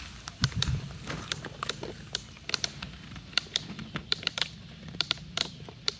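Plastic toy excavators and trucks being handled in sand: light, irregular clicks and clacks of plastic, several a second.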